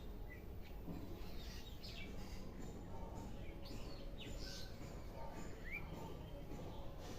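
Birds chirping, a few short scattered calls including one quick rising chirp near the end, over steady background noise.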